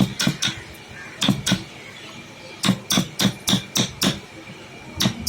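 Hammer strikes in wood workshop work: about a dozen sharp blows in uneven clusters of two to five, each a short crack with a brief ring.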